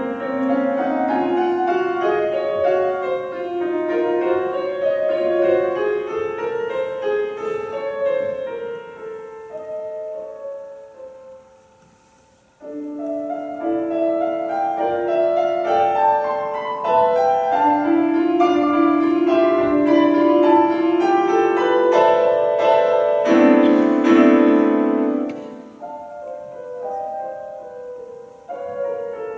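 Solo grand piano playing classical music. The playing dies away to a brief pause about twelve seconds in, then starts again loudly and builds to a big, full chord near the end before falling to softer playing.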